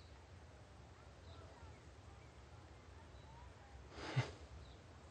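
Faint birds chirping now and then over a low room hum. About four seconds in comes one brief rustling sound that ends in a soft thump, the loudest thing here.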